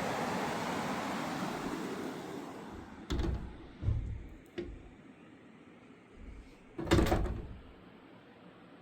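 Rushing river water, a steady hiss that fades away over the first few seconds. Then a run of sudden thumps and knocks, the loudest about seven seconds in.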